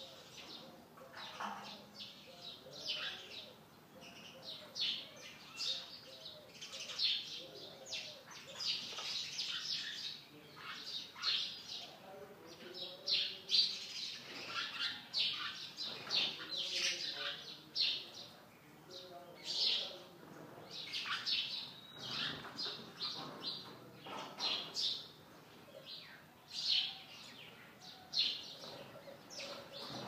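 Sparrows chirping: runs of short, high chirps in bouts with brief pauses between them.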